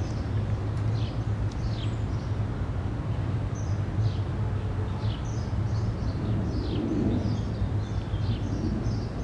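Outdoor street ambience: a steady low rumble with small birds chirping over it, a string of short, high, falling chirps.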